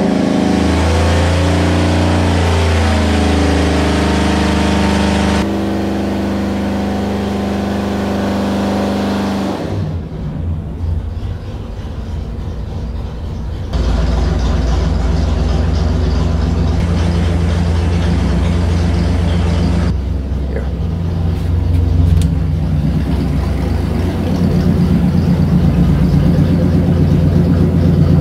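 Chevrolet 327 small-block V8 running under load on an engine dynamometer during a dyno pull. The engine note rises over the first several seconds, drops abruptly to a lower, rougher run about ten seconds in, then comes back louder and climbs again near the end.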